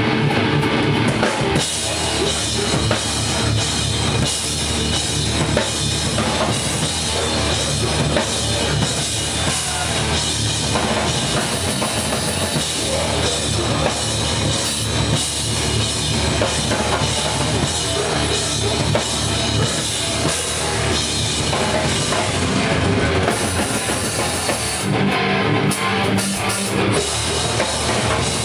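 Live metalcore band playing loud: heavy guitars and bass with a pounding drum kit. A guitar-led passage gives way to the full band with drums about a second and a half in.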